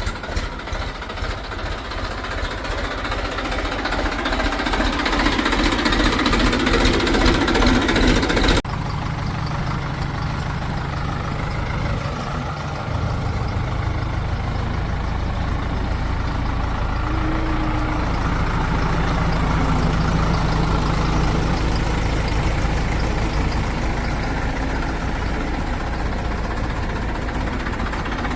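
Heavy diesel engine running with a rapid knocking beat that grows louder, then, after a sudden cut about nine seconds in, a steadier, lower diesel engine note.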